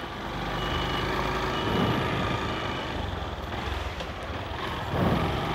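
Motorcycle engine running steadily while under way, mixed with wind and road noise.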